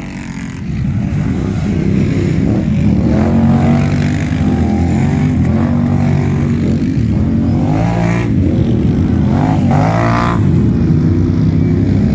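ATV quad engines running under load, their pitch shifting as the throttle works, with sharp revs about eight and ten seconds in.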